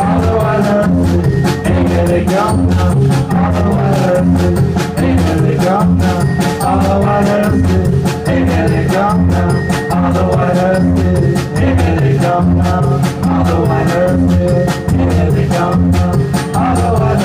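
Live rock band playing: a drum kit beaten with sticks, with snare and bass drum, under an electric guitar played through an amp, over a repeating pattern of low notes.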